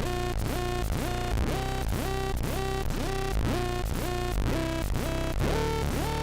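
Elektron analog synthesizer playing an EDM preset: a sequenced pattern of short notes repeating about two and a half times a second, each note with a quick upward pitch sweep, over a steady low bass. The pattern shifts to higher notes about five and a half seconds in.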